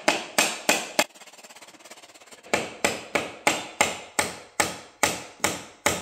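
Small hammer tapping a cut piece of luxury vinyl plank flooring into place. It makes sharp knocks about three a second, pauses for about a second and a half early on, then taps steadily again.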